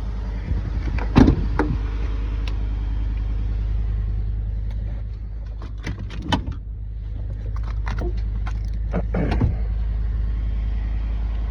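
Ford 5.0 Coyote V8 idling steadily, heard from inside the truck's cab, with a few sharp clicks and knocks scattered through it.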